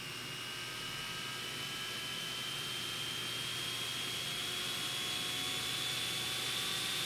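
Toshiba dynabook R631 laptop cooling fan running: an airy whir with a thin whine that slowly rises in pitch as the fan speeds up, getting gradually louder.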